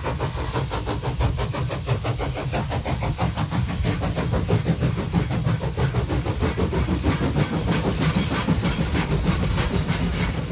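Car driving along a road, heard from inside the cabin: steady engine and tyre noise with a high hiss.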